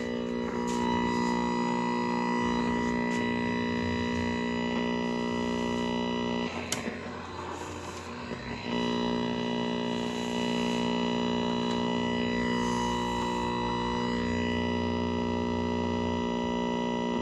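Steady buzz and hum from a running 1969 Zenith portable tube TV. A burst of hissing static breaks in about six and a half seconds in and lasts about two seconds.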